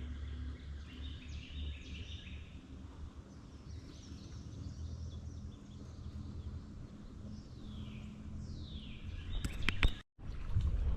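Songbirds singing and calling over a steady low rumble, with several sharp clicks near the end and a moment where the sound cuts out.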